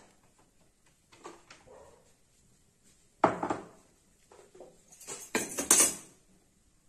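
Metal kitchenware clattering: a few soft knocks, one sharp ringing clank a little after the middle, then a quick run of bright metallic clinks and clanks.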